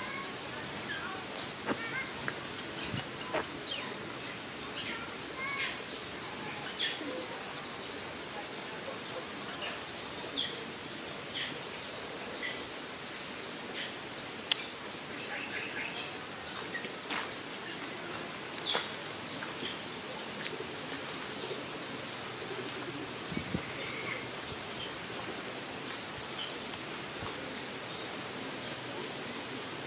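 Outdoor ambience of small birds chirping in short scattered calls over a steady hiss, with a few sharp ticks.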